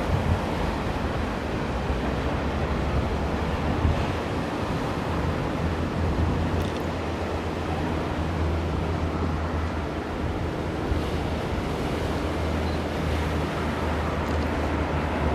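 Steady outdoor rush of sea surf and wind on the microphone, with a low rumble underneath.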